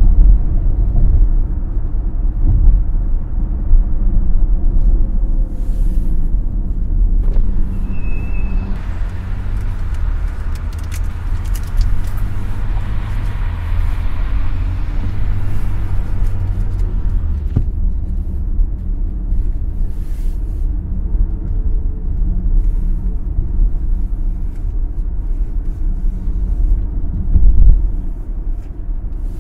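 Cadillac XT5 driving at highway speed: steady low rumble of road and engine noise, with a rush of higher noise coming in about seven seconds in and dropping away at about seventeen seconds. A short high beep sounds about eight seconds in.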